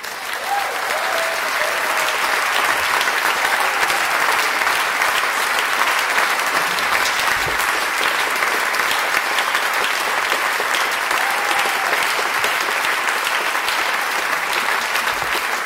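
Audience applauding, swelling within the first second and then holding steady.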